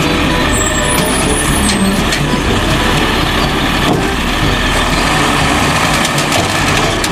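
Automated side-loader garbage truck's diesel engine running steadily while its hydraulic arm grabs and lifts a wheelie bin, with a few faint high squeaks in the first two seconds.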